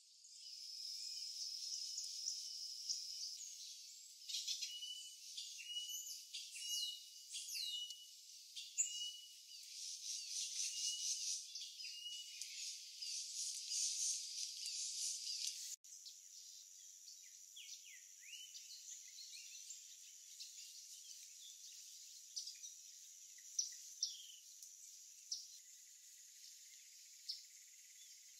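Forest ambience of insects and birds: a steady high-pitched insect drone with repeated short bird chirps over it. About 16 seconds in it breaks off abruptly and resumes with a different steady insect hum and scattered chirps.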